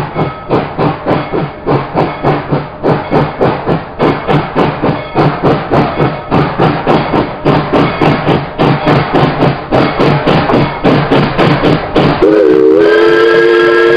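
Narrow-gauge steam locomotive approaching, its exhaust chuffing about three times a second and quickening slightly. About twelve seconds in, its steam whistle starts blowing a steady chord of several notes.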